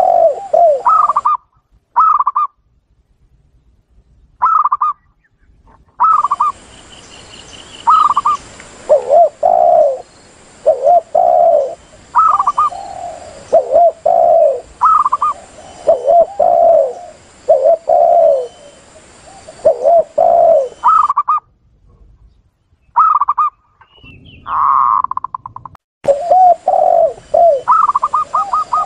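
Spotted doves and zebra doves cooing, several birds calling over one another in a lure-call recording. There are low, drawn-out coos and higher, quicker repeated notes, and the recording cuts off and restarts abruptly a couple of times.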